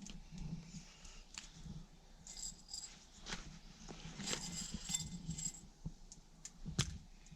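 Small fixing caps and hardware being handled, with scattered light clicks and clinks and two short jingling stretches.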